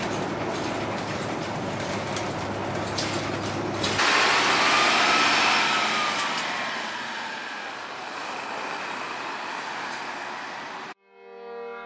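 Route bus: first steady engine and road noise heard from inside the moving bus, with a low hum, then from the roadside the bus pulling away, loudest at first with a faint whine rising and falling, and fading as it drives off. Music starts just before the end.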